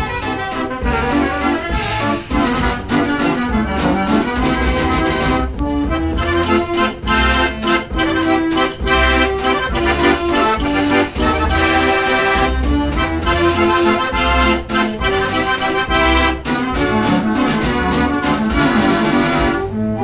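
The Jeanneke Mortier, a 92-key Mortier orchestral dance organ, plays a waltz from a vinyl LP. Its accordion and pipe registers carry the tune over a pulsing bass and a percussion beat.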